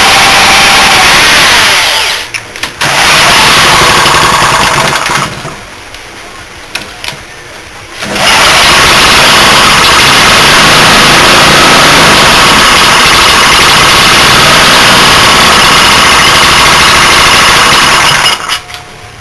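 Briggs & Stratton single-cylinder engine with a shaved, high-compression head on a cold start, running with the carburetor choked by hand. It cuts out about two seconds in, picks up again, drops away for a few seconds, then runs steadily for about ten seconds before stopping near the end.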